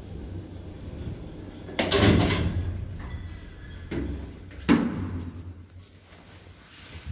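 1979 Končar traction lift running with a low hum, broken by two loud clunks nearly three seconds apart as the stop switch is toggled. The car does not halt at once but keeps moving for about half a second after the switch, and the hum fades near the end.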